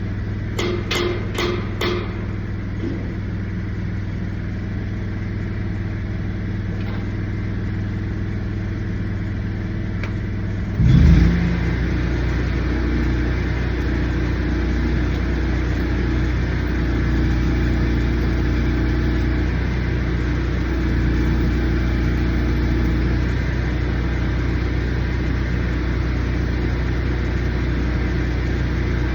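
An engine running steadily, with a few quick taps in the first two seconds. About eleven seconds in, the engine sound jumps after a brief burst to a louder, deeper running that holds to the end.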